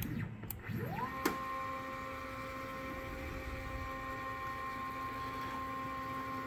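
Stepper motors of a Centroid Acorn-controlled CNC router driving the gantry: the whine rises in pitch about a second in as the motors speed up, then holds a steady multi-pitched whine, with a short click just after the ramp.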